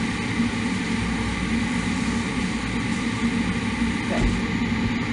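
A steady mechanical whir with a low hum underneath, unchanging throughout, from a running kitchen fan or appliance motor. A small knock about four seconds in.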